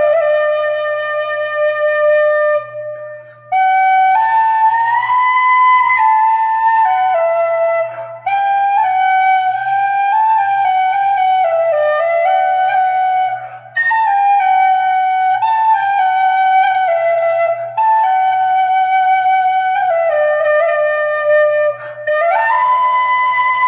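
Celtic flute playing a slow, calm melody in long held notes that glide between pitches, with short breath pauses every few seconds. A faint steady low hum runs underneath.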